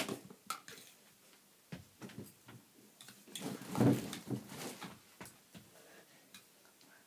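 A girl eating off a spoon with loud mouth noises about three and a half seconds in, among scattered small clicks and knocks from the spoon and tableware.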